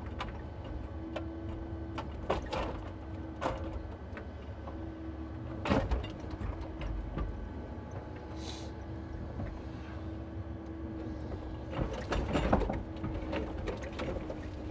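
Timber truck's engine running steadily, with scattered knocks and clunks and a short hiss about eight and a half seconds in.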